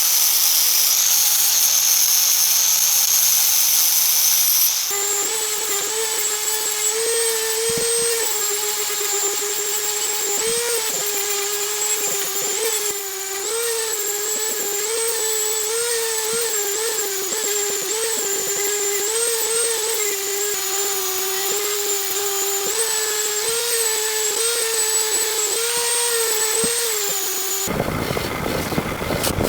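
Power tool motors running in a series of cuts. First a high-pitched whine. About five seconds in, a motor with a steady tone whose pitch dips and wavers slightly, as under changing load. Near the end it cuts suddenly to a rough, even noise.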